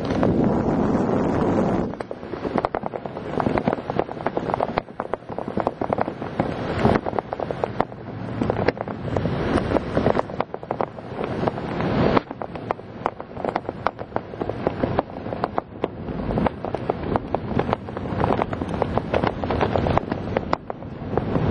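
Wind buffeting the microphone during a parachute descent: a loud rush for about the first two seconds, then rapid, uneven crackling from the gusts.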